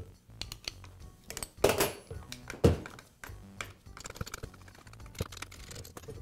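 Screwdriver and screws clicking against a Milwaukee drill's metal gear case as the screws holding the gearbox are taken out: scattered light clicks, with two louder knocks about two and three seconds in. Soft background music plays throughout.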